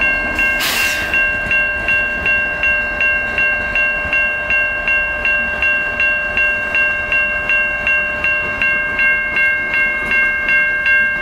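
Level-crossing warning bell ringing steadily at nearly three strikes a second, over the rolling rumble of a freight train's open-top hopper cars passing slowly.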